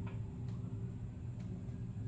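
A few faint clicks of a wrench being tried on a fitting nut, over a steady low hum.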